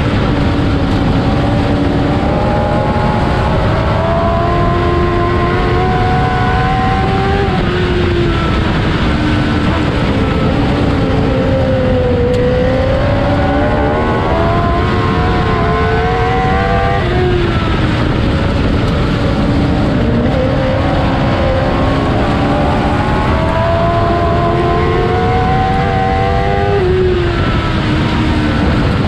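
Modlite dirt-track race car's four-cylinder engine heard from inside the cockpit at racing speed, over a constant low rumble. The engine pitch climbs along each straight and drops off sharply into the turns, about every ten seconds.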